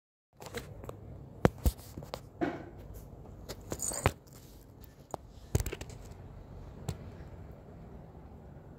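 Scattered sharp taps and knocks with a short rustle just before the loudest knock, about four seconds in, from a sandalled foot and the handheld phone moving on a tiled floor.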